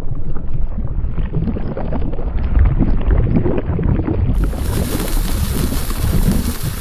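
A steady low rumble. It is muffled for about the first four seconds, then a hiss joins it.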